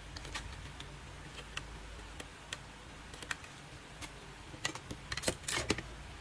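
Scattered light clicks and taps from plastic grooming-kit parts being handled, with a quick flurry of clicks and a brief rustle about five seconds in.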